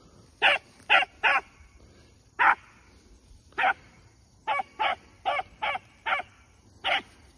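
A rabbit hound giving short, chopped barks, about eleven in uneven groups, as it works a rabbit's scent trail.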